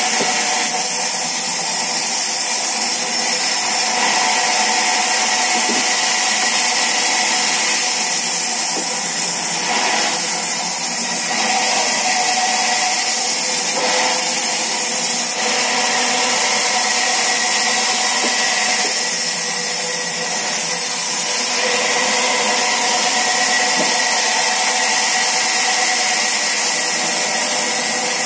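Sawmill saw running steadily and cutting through wood, a loud continuous rush with a whine whose pitch shifts slightly from time to time.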